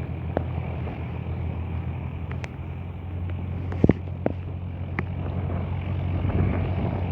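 Light aircraft's piston engine droning steadily, with a few sharp clicks and a louder knock about four seconds in.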